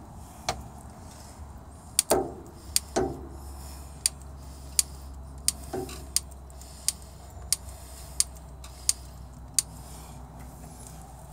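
Grease gun pumping grease into a PTO driveshaft fitting on a snowblower: sharp metal clicks, a few uneven ones at first, then about one every 0.7 seconds, stopping near the end. A steady low hum runs underneath.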